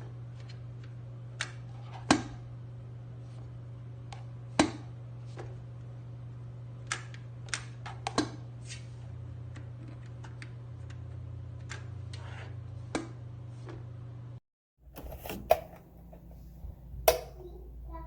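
Stainless steel electric kettle heating, with irregular sharp ticks and pops over a steady low hum. The sound drops out about 14 seconds in, and a few louder knocks follow.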